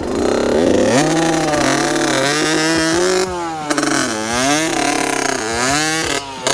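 Dirt bike engine revved up and down again and again while the rear wheel spins in loose dirt, the rider working the clutch to push the stuck bike up a slope.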